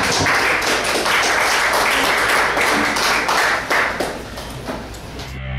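Audience applauding, the clapping thinning out and dying away about four to five seconds in.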